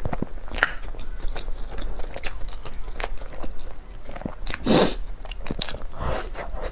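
Close-up mouth sounds of someone biting and chewing food, with many small crisp crunches and clicks. A louder burst comes a little after the middle.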